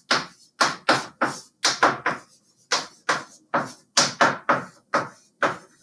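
Handwriting: a quick run of short, scratchy writing strokes, about three a second, on a writing surface.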